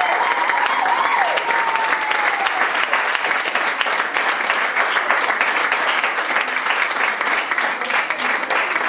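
Audience applauding with dense, steady clapping. A high, gliding call rises above the clapping in the first couple of seconds.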